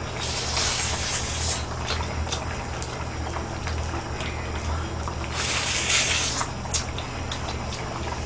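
Wet slurping and chewing of hot pork-bone soup meat, in two hissy slurps of about a second each with small mouth clicks between, over a low steady hum.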